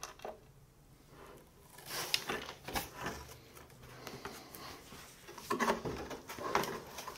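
Handling noises from a model airplane fuselage being turned over and handled above a cardboard box: scattered soft knocks, taps and rustles that begin about a second and a half in.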